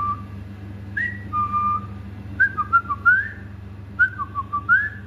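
Pet parrot whistling: a series of short whistled notes, each group a quick rising note followed by a flatter, lower one, repeated every second or so.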